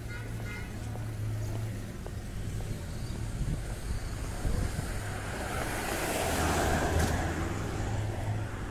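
Street traffic: a steady low engine hum, with a rush of passing traffic that swells and is loudest about six to seven seconds in.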